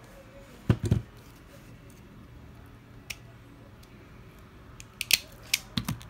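Pittsburgh 6-1/2 in. automatic wire stripper worked by hand: two or three sharp snaps of its jaws and spring about a second in, a single light click midway, and a cluster of sharp clicks and knocks near the end.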